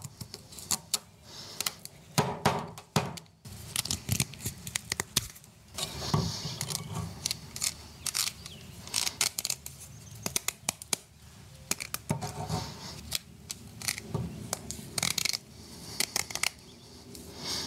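Strands of one-inch steel wire rope clicking, scraping and rattling against each other as they are twisted back together by hand: many short metallic clicks with stretches of scraping.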